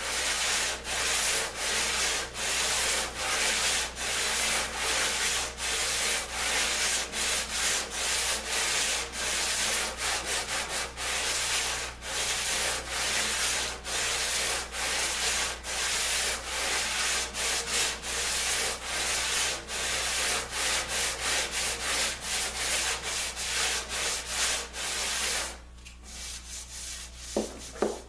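Sandpaper rubbed by hand along a curved, bent-laminated wooden half ring in back-and-forth strokes, quicker for a while around the middle. The sanding stops a few seconds before the end.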